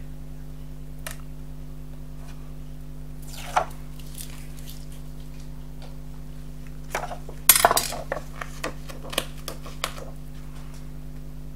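Light clicks and taps of a plastic-handled embossing stylus and card stock being handled on a cutting mat: a short scrape about three and a half seconds in, then a quick cluster of taps from about seven seconds in, the sharpest near seven and a half seconds. A steady low hum runs underneath.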